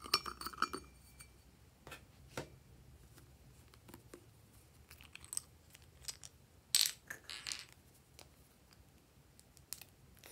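Small plastic containers and squeeze bottles of glitter glue being handled over glass trays: scattered light clicks and taps, with a louder, longer rustling burst about seven seconds in.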